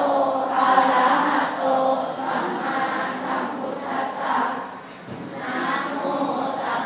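A large group of children's voices chanting together in unison, in phrases that rise and fall, with a short break about five seconds in.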